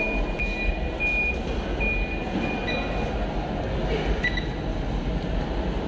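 A high electronic beep repeating, about six short beeps in the first three seconds, then a couple of brief blips, over a steady low rumble.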